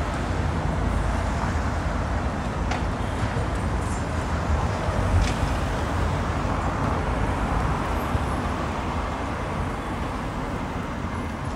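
Steady city street traffic: a continuous wash of car and engine noise with a low rumble, with no single vehicle standing out.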